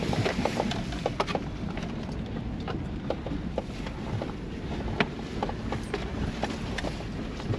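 Ford Bronco driving in four-wheel drive on a muddy dirt road, heard from inside the cab: a steady engine and road rumble with frequent irregular clicks and knocks.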